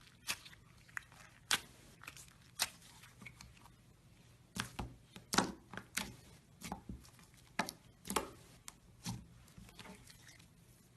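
Slime being squeezed and poked by hand, giving irregular sharp clicks and pops, busiest in the middle.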